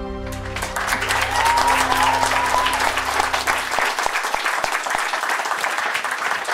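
A small group clapping and applauding, with one held whistle about a second in. Low music fades out beneath the applause over the first few seconds.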